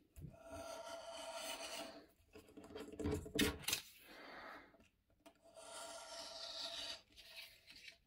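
Circle cutter blade scraping through paper as it is swung round its centre pivot, a rasping scrape in three long strokes with short pauses between them. A few louder knocks come about three seconds in.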